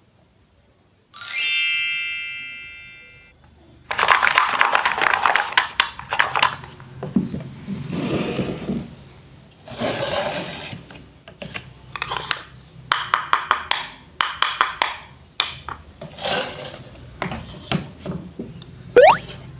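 A bright chime rings once and dies away over about two seconds, then wooden toy fruit and vegetable pieces clatter, click and scrape as they are handled, with a quick rising tone near the end.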